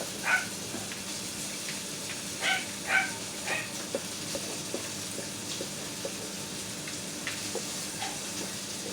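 Five short, high-pitched calls from a pet in the first three and a half seconds, over a steady low hum; after that, soft light clicks come a couple of times a second.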